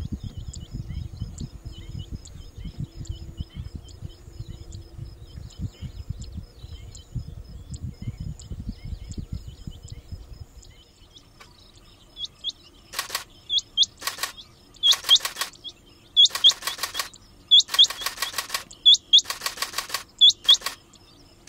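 A male rain quail calling: a series of loud, sharp metallic notes, about one a second, starting around halfway, after a stretch of soft low rustling with faint high chirps. This is the territorial call that males give in the monsoon breeding season.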